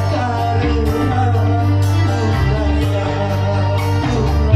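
A man singing live into a microphone over keyboard accompaniment, amplified through a PA, with a steady bass line and regular percussion hits.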